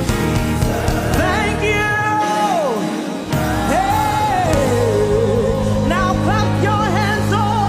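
Gospel worship music: a singer holds long notes and slides between them over a steady bass line. The bass drops out for about a second a little after two seconds in, then comes back.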